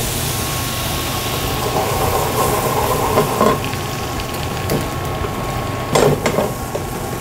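Water squirted into a hot oiled frying pan of Brussels sprouts, hissing and sizzling as it boils off to steam-cook them. Around six seconds in come a few sharp knocks as the pan is shaken on the gas grate.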